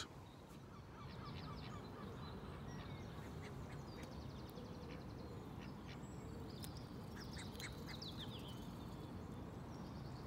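Ducks quacking faintly in short runs of calls, over a steady low background hum.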